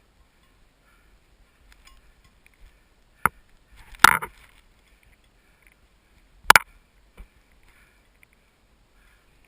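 Boots crunching and plunging into deep, untracked snow while breaking trail: three sharp crunches a second or two apart, the middle one longest, then a faint fourth.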